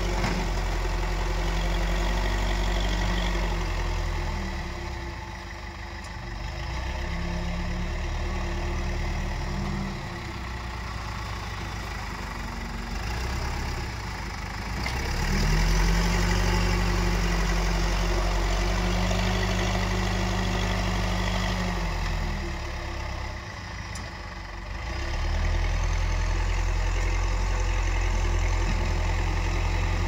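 Backhoe loader's diesel engine running and working its front bucket through loose soil, its pitch dropping and climbing again several times as the load changes.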